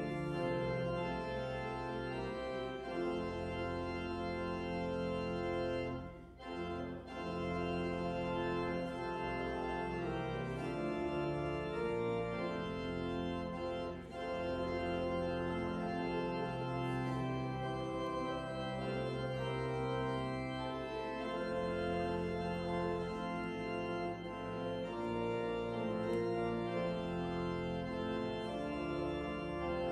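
Church organ playing sustained chords over a bass line, with a short break about six seconds in.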